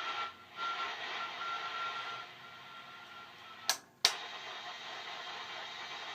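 Trio 9R-59 valve shortwave receiver hissing with static between stations, with a faint steady whistle during the first couple of seconds. Past halfway come two sharp clicks a third of a second apart, the hiss dropping out between them, then the static carries on.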